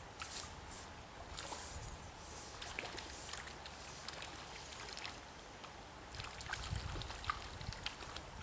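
Shallow river water sloshing and trickling around a wading angler's legs, in irregular splashy bursts, with scattered light knocks as he works the fly line.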